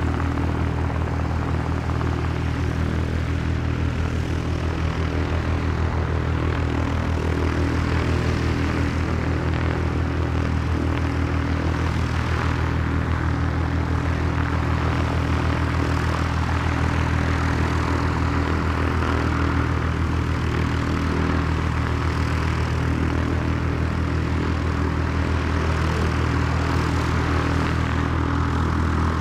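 Small propeller plane's piston engine running steadily at a constant low speed, a throbbing drone with no change in pitch.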